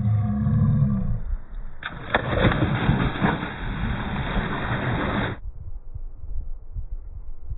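A large water splash, starting suddenly about two seconds in and cutting off abruptly after about three and a half seconds, as a person plunges into a river. Before it comes a low, pitched rumble lasting about a second; after it, only faint outdoor background noise.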